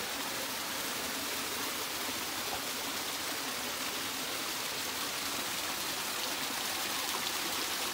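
Small forest waterfall cascading over rocks into a stream: a steady, even rush of water.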